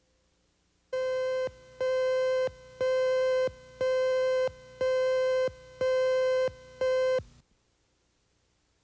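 Seven mid-pitched electronic beeps, about one a second, each held for most of a second before it cuts off. This is the cue tone on a TV news tape that goes with the station's slate card and marks the start of the next story.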